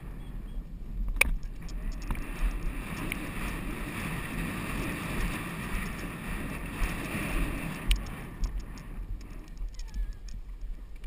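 Wind rushing over an action camera's microphone as the horse is ridden at speed across a polo field, building about a second in and easing near the end, with irregular low thumps from the horse's gait and a sharp click about a second in.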